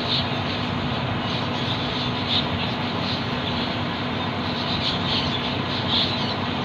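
Short high bird chirps at irregular intervals, a few seconds apart, over a loud steady background noise with a low hum.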